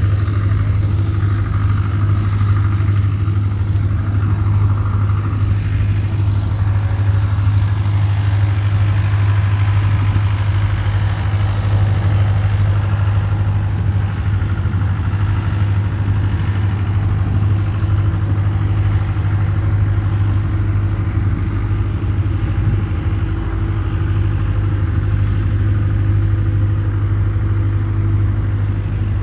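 A steady, unchanging low hum, like a motor running, with no speech.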